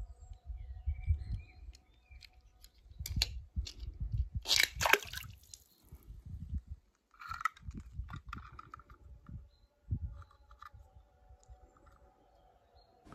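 Irregular handling noise: soft knocks and rustles with a few sharper clicks, over a faint steady hum.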